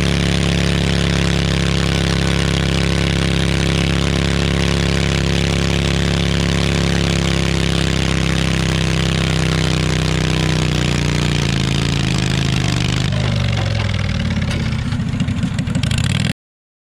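Stock garden tractor engine running hard under load, pulling a weight-transfer sled. From about ten seconds in the engine slows and its pitch falls, then it runs low, rough and uneven before the sound cuts off abruptly.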